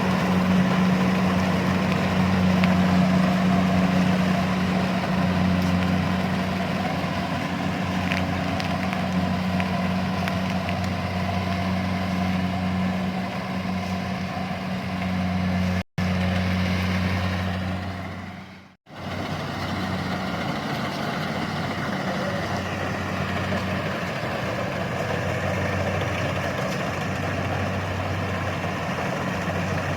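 Engine of rice-harvesting machinery running steadily with an even drone. About halfway through, the sound cuts out sharply twice in quick succession, then the same running resumes.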